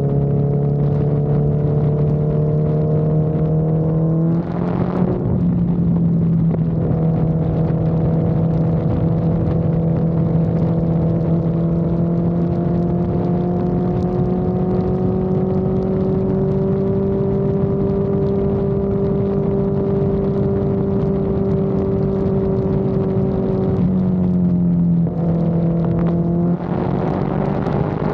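Honda CB1000R's inline-four engine running under way, its note slowly climbing in pitch, with brief breaks in the engine note about four seconds in and twice near the end. Wind rushes on the microphone throughout.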